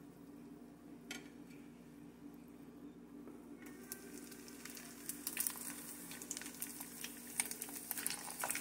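Hot cooking oil in a pot, quiet at first apart from a low steady hum. About four seconds in, dried fish goes into the oil and it starts sizzling and crackling, busier and louder toward the end.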